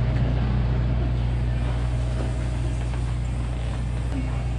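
Steady low droning hum, like machinery running.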